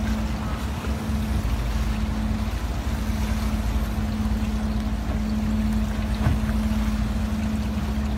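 Fishing boat's engine running steadily with a low hum, under wind and sea noise. A single brief knock sounds about six seconds in.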